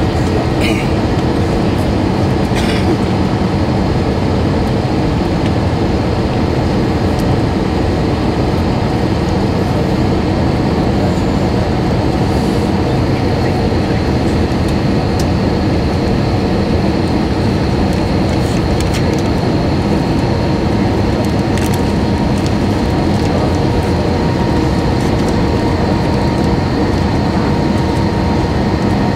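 Jet airliner cabin noise: a steady, loud rumble of engines and airflow, with faint steady tones on top.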